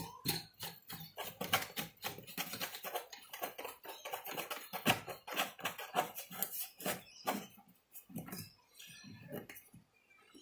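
Quick, irregular plastic clicks and taps as a float valve's plastic lock nut is threaded on by hand through the wall of a plastic storage tub. They are busiest over the first seven seconds or so and thin out near the end.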